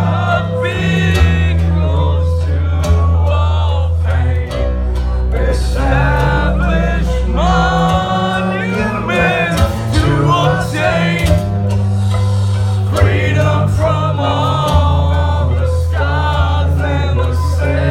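Heavy metal band playing live: a male voice singing over guitar and a heavy, sustained low bass.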